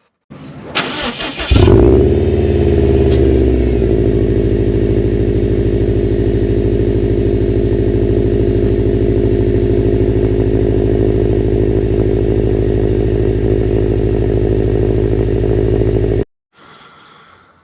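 2017 Subaru WRX STI's turbocharged 2.5-litre flat-four engine (EJ257), breathing through its stock Invidia R400 mufflers, cranked and started: it catches with a brief rev flare, settles into a steady idle within a couple of seconds, and cuts off suddenly near the end.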